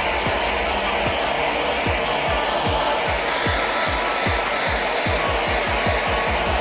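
Handheld kitchen blowtorch flame hissing steadily as it caramelizes sugar, with deep kick-drum beats of background music underneath.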